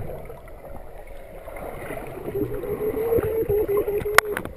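Underwater water noise, gurgling and ticking against the microphone. In the second half a steady, slightly wavering hum-like tone holds for about two seconds, and a sharp click comes near the end.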